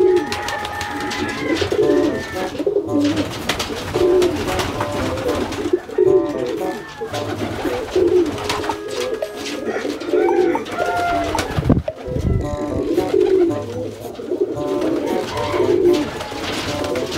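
Domestic pigeons cooing over and over, a low rounded coo every second or two, with a few faint higher chirps and a dull thump about twelve seconds in.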